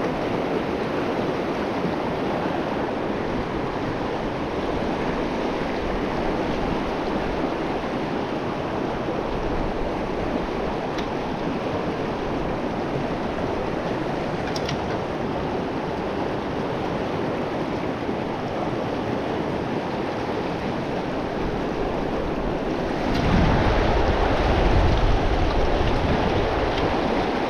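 Steady rush of river water flowing over rocks. Near the end it turns louder, with a deep rumbling like wind buffeting the microphone.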